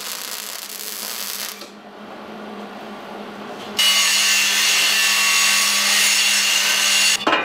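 Wire-feed welder arcing on a steel frame, a hissing crackle for about the first second and a half. About four seconds in an angle grinder bites into the steel, grinding with a steady high whine until it stops just before the end.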